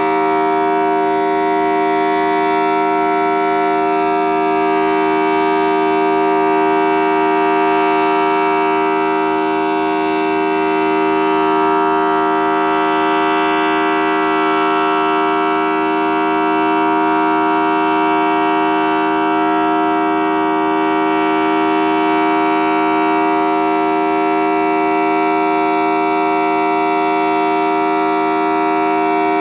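Federal Signal Thunderbolt 1000T civil-defense siren with a 4/5-port rotor, sounding a steady tone at full pitch: its two port tones form a chord. The tone holds without rising or falling, and the loudness swells and fades only slightly.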